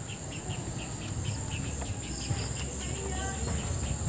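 Insects, crickets or cicadas, keep up a steady high-pitched drone, with a quicker chirp repeating about five times a second.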